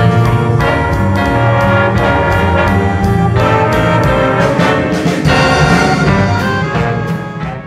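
School jazz band playing, with saxophones and brass over a steady beat; the music fades out at the end.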